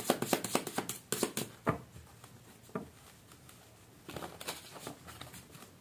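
A deck of tarot cards being shuffled by hand: a fast run of crisp card snaps for the first second and a half, then a few single flicks, and another short flurry about four seconds in.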